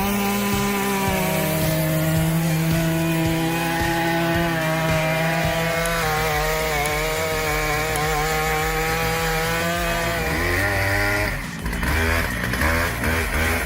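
Large two-stroke chainsaw running steadily at high revs as it cuts through a big log. About eleven seconds in it gives way to a different engine sound that rises and falls in pitch.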